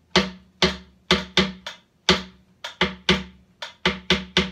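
Large rope-tensioned wooden-shell drum struck with a beater, playing a syncopated rhythm pattern at a brisk tempo. The strokes come in uneven groups of two or three, each with a short ringing boom.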